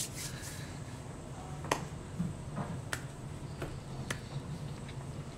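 A handful of light, sharp clicks scattered over a few seconds, the loudest about a second and a half in, over a low steady hum.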